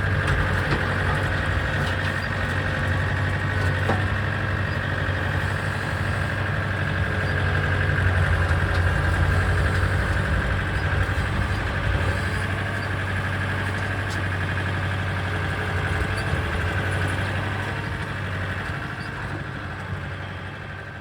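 Tractor engine running steadily, with a steady high whine over it, while plowing snow off a driveway. The sound fades out near the end.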